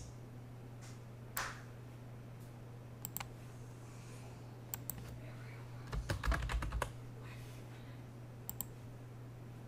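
Computer keyboard typing: a quick run of keystrokes about six seconds in, with a few single clicks before and after, over a steady low hum.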